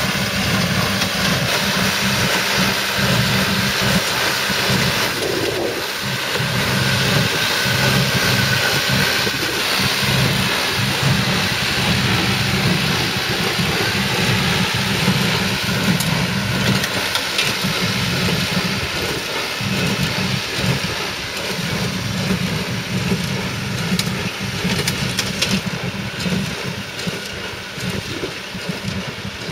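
John Deere 2850 tractor's diesel engine running steadily under load as it pulls a John Deere 342A small square baler past while baling, the baler's mechanism working along with it. Loudest in the first ten seconds or so, then easing off gradually as it moves away.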